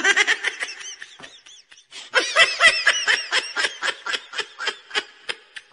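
High-pitched laughter: a fast run of short 'ha' pulses, about six a second. It fades after the first second and then picks up again, loud and hearty, about two seconds in.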